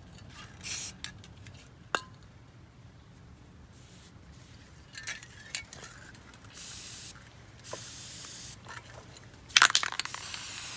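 Aerosol spray-paint can spraying onto the water's surface in a series of hissing bursts: a short one under a second in, then three longer sprays near the end, the last the loudest.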